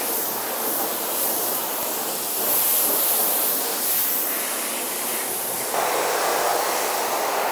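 High-pressure washer jet spraying water onto a car body, rinsing off the alkaline pre-wash foam: a steady hiss of spray on the panels. It turns fuller about two thirds of the way in, as the jet moves up onto the windows and roof.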